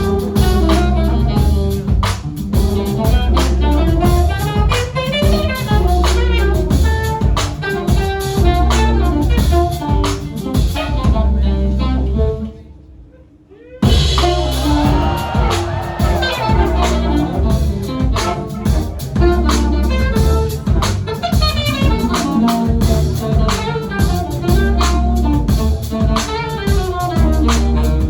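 Live jazz quartet of drum kit, electric bass, keyboards and saxophone playing a busy, driving groove. About halfway through the whole band stops dead for about a second, then comes back in together at full volume.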